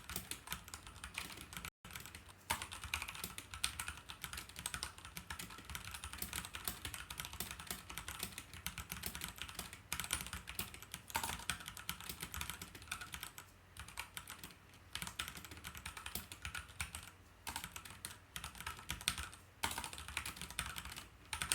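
Fast typing on a Keychron K4 mechanical keyboard with Gateron Brown tactile switches: a dense, quick run of key clacks broken by short pauses now and then.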